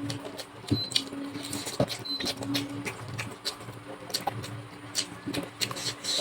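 Close-miked chewing and lip smacking while eating chicken drumstick curry with rice: irregular wet clicks and smacks, a few a second, over a steady low hum.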